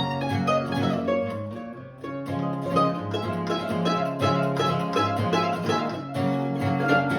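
Instrumental break played on fast-picked acoustic string instruments over a steady bass-note rhythm. The playing thins out briefly about two seconds in, then picks back up.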